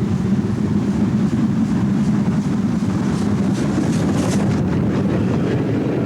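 North Eastern Railway class Q7 three-cylinder 0-8-0 steam freight locomotive working, a steady heavy rumble with a run of exhaust beats that grows louder about three to four and a half seconds in.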